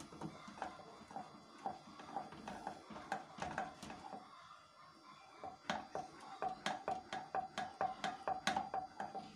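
Wooden spoon stirring a sauce in an aluminium saucepan, knocking and scraping against the pan with a light metallic ring. The strokes come quicker and louder from about halfway.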